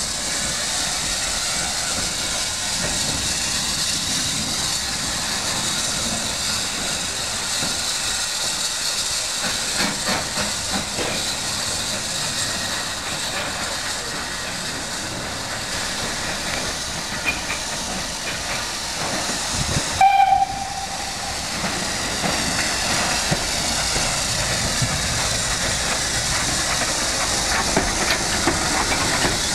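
Steady hiss of steam from an LMS Fowler 3F 'Jinty' 0-6-0T tank locomotive, No. 47324, with a short steam-whistle toot about two-thirds through.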